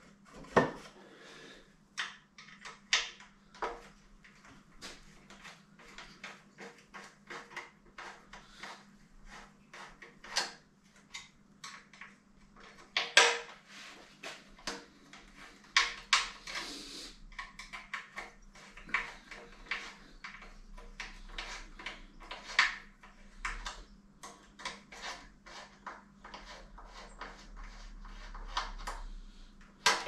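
Metal tools and small bicycle parts clinking and knocking as a bike frame's fittings are taken off, likely the rear brake: many irregular taps and clatters, with a faint steady hum underneath.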